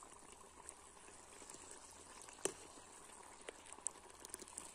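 Spiced curry gravy simmering faintly in a large metal kadai, with a ladle lifting it and pouring it back into the pan. A sharp click about two and a half seconds in and a few light ticks near the end.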